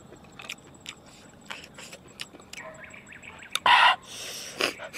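Mouth and hand eating sounds: scattered small clicks of shells, a faint bird chirp, then a loud short hissing breath in through the mouth a little before the end and a smaller one just after.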